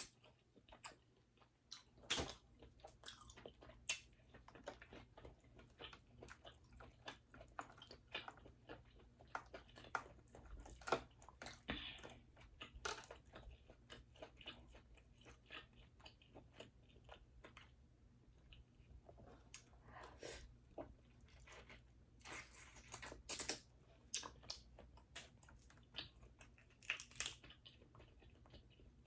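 A person chewing and biting into boiled crawfish and mussels, with irregular sharp clicks and crunches.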